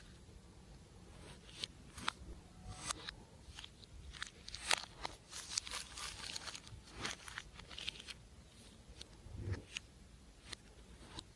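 Slime being squeezed and worked by hand: scattered sticky clicks and crackles, busiest in the middle.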